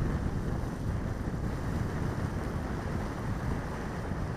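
Wind buffeting the microphone in a steady low rumble, with small choppy waves washing against a rocky shore.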